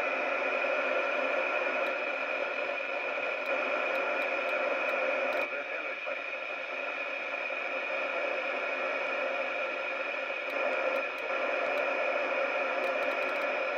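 Steady static hiss from a Thunderpole T-2000 CB radio's speaker with the squelch open: no station coming through, only receiver noise. The hiss dips briefly twice as the channel is changed, and faint ticks sound as the channel knob is turned.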